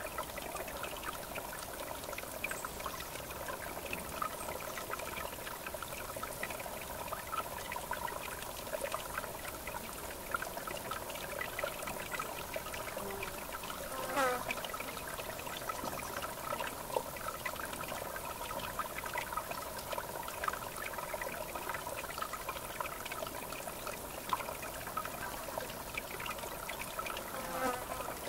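River water flowing with a steady trickling, babbling sound. A brief falling sound cuts through about halfway and again near the end.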